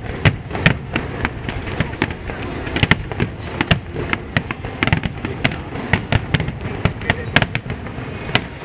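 Aerial firework shells bursting in a rapid, irregular string of bangs, several a second.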